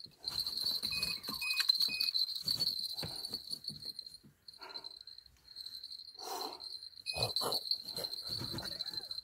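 Night insects chirring in a steady high trill that breaks off briefly about halfway through, over irregular knocks and rustles of rod and tackle handling in a boat while a catfish is played. Three short beeps sound about a second in.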